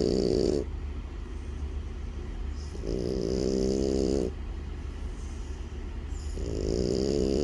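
French bulldog snoring: long, pitched, rasping snores about every three and a half seconds. One trails off just after the start, another comes about three seconds in and a third near the end.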